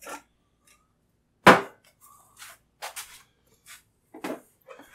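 One sharp knock about one and a half seconds in, then several lighter clicks and taps: hard tool parts being handled on a manual tire changer.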